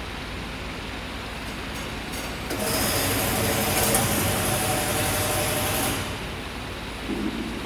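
Wire-bending machine for chair and furniture frames running: a steady mechanical hum, with a louder stretch of whirring and hiss from about two and a half to six seconds in as the machine works.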